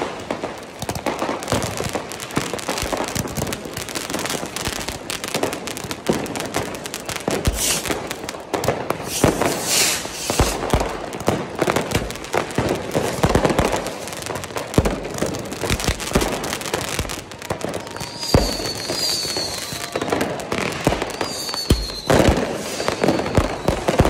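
Fireworks and firecrackers going off in a dense, continuous barrage of bangs and crackling from many rockets and bangers at once. In the last third, several short falling whistles cut through the bangs.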